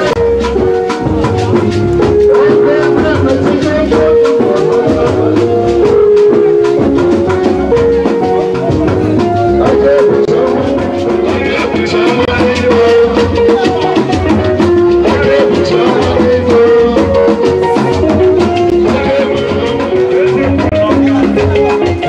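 Music with a steady drum beat, a shaker and a repeating melodic line of held notes.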